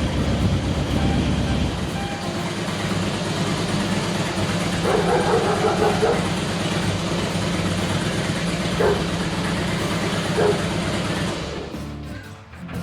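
Harley-Davidson 2007 Street Glide's Twin Cam 96 V-twin engine idling steadily, then dropping away near the end.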